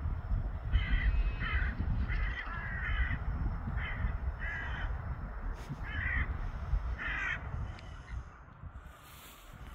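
A crow cawing: about nine short, harsh caws that stop about three-quarters of the way through, over a low rumble.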